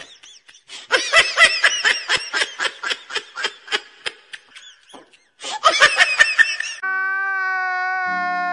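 Rapid, high-pitched laughter in two runs of quick short bursts, followed near the end by a steady held tone.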